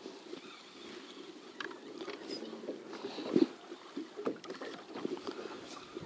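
Small waves lapping and slapping against the hull of a small fishing boat, with irregular knocks and one louder slap about three and a half seconds in.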